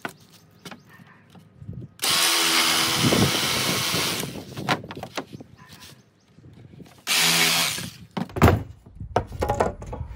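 A handheld power tool runs in two bursts, first for about two seconds and then for about one second, its motor giving a steady whine. A sharp knock follows shortly after the second burst, with light clicks of wood being handled.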